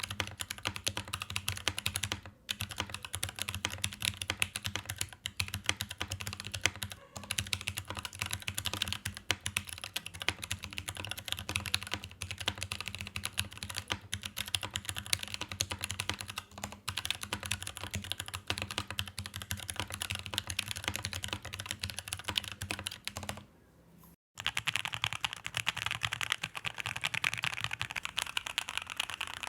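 Continuous fast typing on a mechanical keyboard, a dense stream of key clacks. About 24 seconds in it stops briefly, and the typing that follows sounds brighter and crisper.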